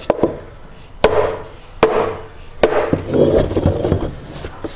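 Orange dead blow hammer striking the end of a urethane control arm bushing over and over, about one dull blow every second, driving the bushing onto the lower control arm shaft of a 1973–87 Chevy/GMC truck. A quicker cluster of taps comes around three quarters of the way through.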